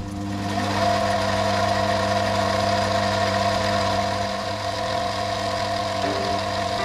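Sieg C2-300 mini lathe running: its variable-speed motor and spindle, on newly fitted tapered roller bearings, make a steady hum with a whine. Just under a second in the speed is turned up, the whine rising in pitch and then holding steady.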